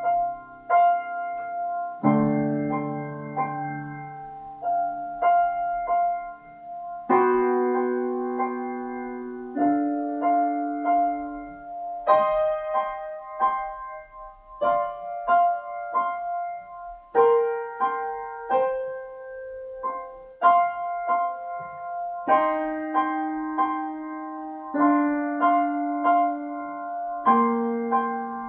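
Solo piano playing a student recital piece: clearly separated notes and chords, each struck and then fading.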